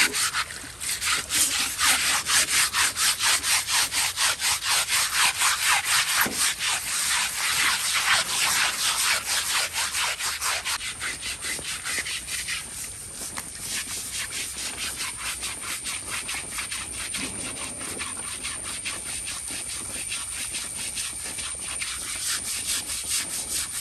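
An elephant's hide being scrubbed by hand during its bath: rhythmic scraping strokes at about four a second, louder in the first half and softer after about twelve seconds.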